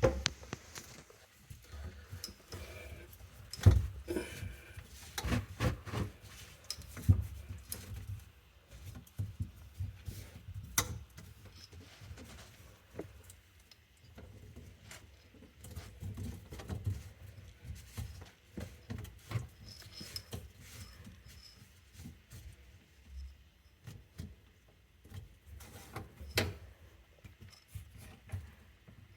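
Irregular clicks, knocks and rubbing of hands handling and tightening the parts of a plastic sink drain, with the sharpest knocks about four, seven and eleven seconds in and again near the end.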